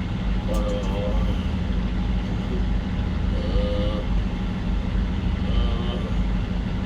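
Steady low engine drone running at an even pitch and level.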